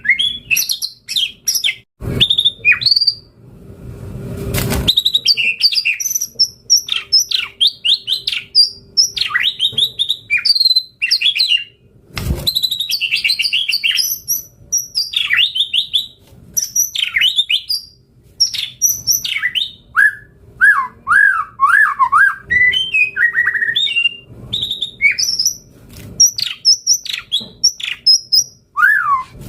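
White-rumped shama singing a long, varied song of quick whistled notes and chirps that rise and fall, with few gaps. A few short knocks fall about two, four and twelve seconds in.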